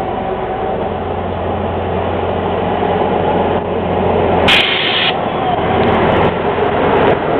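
Small diesel shunting locomotive running as it passes close by, its engine and wheels on the rails growing louder. A brief sharp, high burst lasting about half a second comes about four and a half seconds in.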